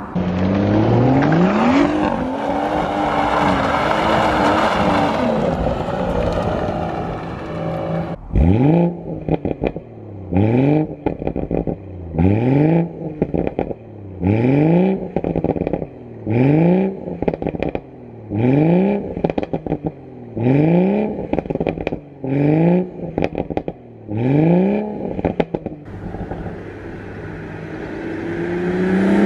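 BMW M140i's B58 3.0-litre turbocharged straight-six with both exhaust resonators deleted. First it accelerates past with the engine pitch climbing. Then it is revved about ten times in an even series, each rev rising and dropping away with crackles and pops on the overrun, and near the end it is heard coming back, the engine rising again.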